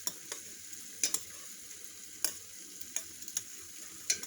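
Coconut oil and beeswax pellets heating in a metal double boiler: a steady high sizzling hiss, with sharp light clicks scattered at irregular moments.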